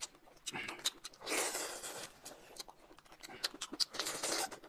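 Close-up eating sounds: scattered small clicks and crunches of food being handled and bitten, with two longer soft hissing stretches, about a second in and near the end.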